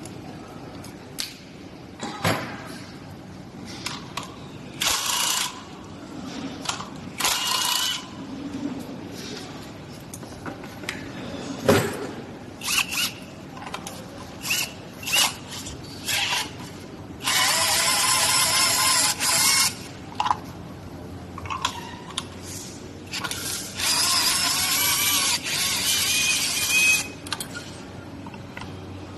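Cordless drill-driver spinning in short bursts as it backs bolts out of an electric scooter's front fork, with two longer runs of a couple of seconds in the second half. Metal clicks and clinks of the parts and tools come between the bursts.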